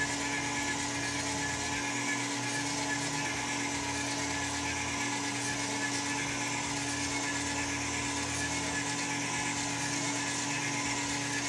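Geared electric motor on a round-column mill running steadily as it raises the mill head up the column: a steady hum with several held tones.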